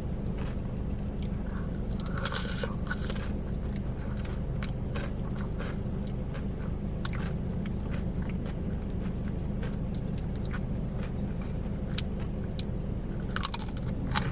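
Close-up chewing and crunching of fried cream cheese rangoons: crisp wonton wrappers crackling in the mouth, with scattered sharp crunches and a louder bite about two seconds in. A steady low hum runs underneath.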